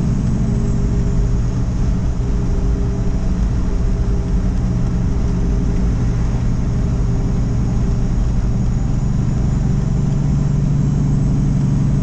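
Semi-truck's diesel engine running steadily at a constant speed, with road noise.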